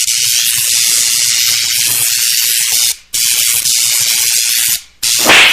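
A loud, steady spray-like hiss in long stretches, broken briefly twice, with a louder burst near the end.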